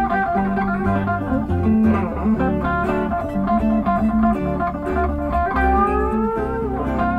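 Background music: a guitar-led blues-style track with sliding notes over a steady bass line.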